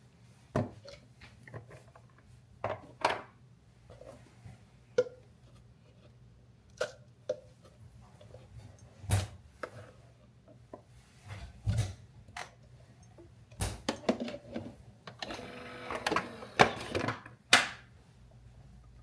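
Kitchen handling sounds while coffee is made: a string of separate clicks and knocks of cups, lids and containers being set down and opened. About fifteen seconds in there is a short buzzing mechanical hum that lasts a couple of seconds, with more knocks over it.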